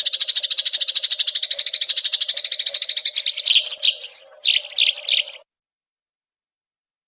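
Recorded songbird song: a rapid, even trill of about ten notes a second, breaking into a few separate falling calls and a short whistle. It cuts off abruptly after about five seconds. A faint steady hum runs underneath.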